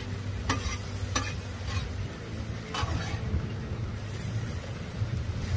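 Sliced beef sizzling on a Blackstone flat-top griddle while a metal spatula stirs and tosses it, with several sharp scrapes of the spatula on the steel in the first three seconds. A steady low hum runs underneath.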